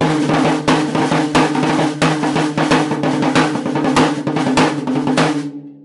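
Rack tom muffled with a folded paper towel duct-taped to its worn, scuffed batter head, struck in a fast run of drumstick hits like a roll; the strokes stop about five and a half seconds in.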